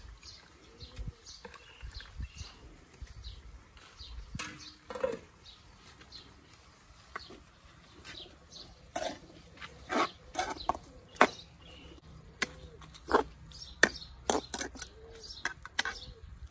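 A metal ladle clacking and scraping against a wok while a frog stir-fry is stirred. The sharp clacks come irregularly and densely from about nine seconds in. Before that, birds chirp and coo in the background.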